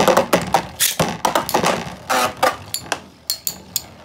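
Two Beyblade metal-wheeled spinning tops clashing in a plastic stadium: a quick, irregular run of sharp clicks and knocks as they collide and scrape the bowl, thinning out near the end.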